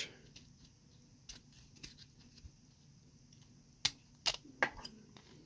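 X-Acto hobby knife blade shaving and scraping the frame of a scale-model truck chassis: a few faint scrapes, then three sharper clicks of the blade about four seconds in.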